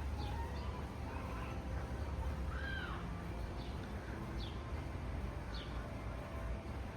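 Birds calling outdoors: a string of short, high, downward-sliding chirps about a second apart, with one lower arched call near the middle. A steady low rumble runs underneath.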